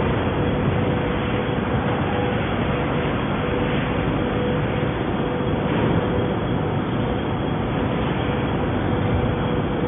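Steady machine noise of an automated glass-sheet line: roller conveyor and industrial robot arms running, with a faint steady hum on top.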